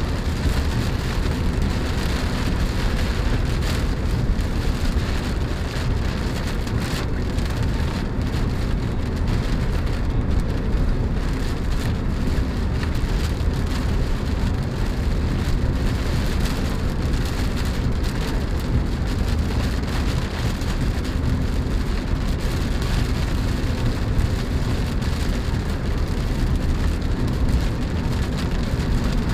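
Rain pattering on the roof and windows of a Chevrolet Spark, heard from inside the cabin as a dense, steady patter, over a steady low driving rumble.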